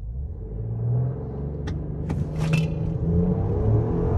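2023 Jeep Wagoneer's 3.0-litre twin-turbo inline-six at full throttle, heard from inside the cabin, pulling hard from a standstill in a brake-boosted launch, its note climbing in pitch as the SUV picks up speed. A couple of brief sharp, hissy sounds come about two seconds in.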